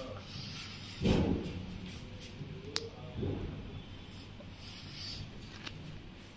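Handling noise: soft rubbing with two dull thumps, about a second in and again just past three seconds, and a faint click between them, over a low steady hum.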